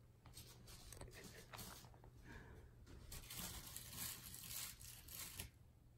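Faint rustling and scratching noises in several bursts, loudest from about three to five and a half seconds in.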